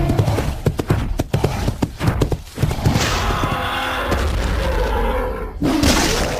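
Gorosaurus kaiju sound effects: a quick run of sharp hits and thuds, then a long screeching roar starting about three seconds in, and another short cry near the end.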